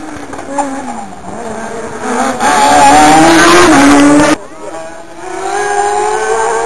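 Rally car engine revving hard with rising pitch, loudest about two to four seconds in, then cut off abruptly. A second rally car engine follows, pulling steadily higher in pitch as it accelerates up the hill.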